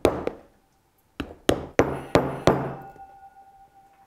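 Hammer tapping a pointed piercer through a paper template into a leather shoe sole on a cobbler's tripod last, pre-punching the holes for hobnails. Two knocks, then after a short pause five more in quick succession, followed by a faint ringing tone.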